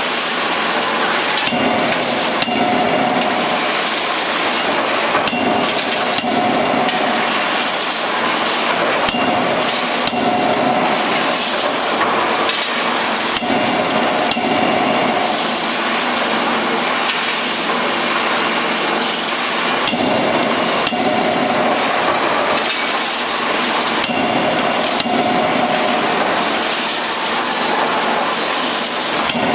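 CNC drop (die) forging hammer striking a red-hot workpiece in its die, a series of sharp metal blows at uneven spacing over steady shop machinery noise.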